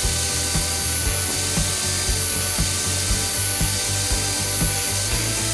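Electric sliding compound miter saw starting up and running steadily with a high whine, its blade cutting a series of shallow kerfs into a wooden trim board.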